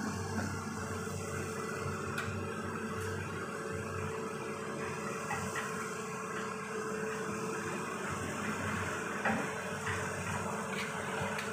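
Steady hum of engines running, with an even rushing noise over it and a few faint clicks.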